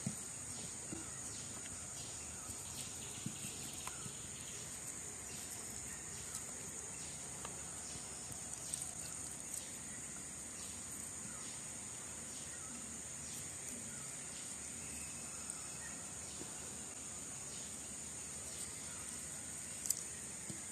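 Steady, high-pitched outdoor insect chorus, with faint scattered ticks and one sharp click near the end.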